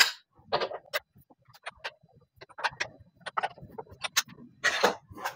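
Irregular metallic clicks and knocks from a wrench working the nuts of a car's rear wheel as they are loosened, loudest right at the start and again near the end.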